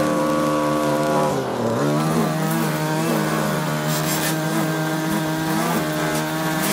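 Two-stroke Echo string trimmer running at high revs while cutting thick overgrown grass and weeds. Its revs dip briefly about a second and a half in, then pick back up, and the note wavers up and down repeatedly as it works.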